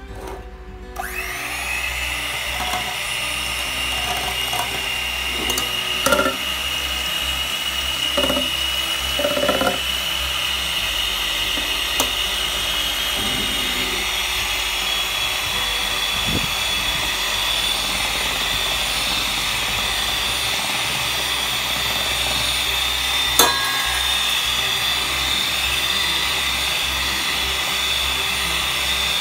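Electric hand mixer beating eggs: a steady motor whine that starts about a second in and climbs slowly in pitch, with a few short knocks between about six and ten seconds in and a sharp click later.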